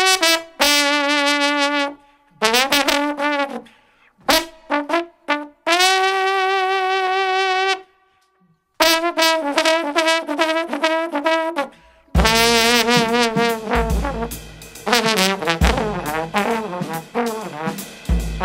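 Solo jazz trombone playing slow phrases of long held notes with wide vibrato, with short pauses between them. About twelve seconds in, other instruments come in beneath it with low bass notes.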